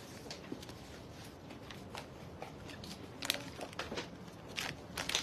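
Handling noise from a cardboard gift box: light taps, scrapes and rustles as it is held and opened. The clicks get more frequent and louder in the second half.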